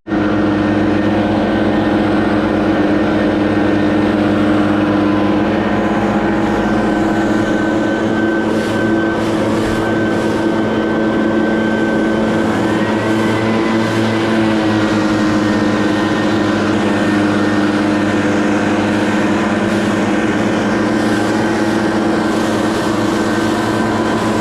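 An engine running steadily at constant speed, loud and close, with a fixed drone that does not rise or fall.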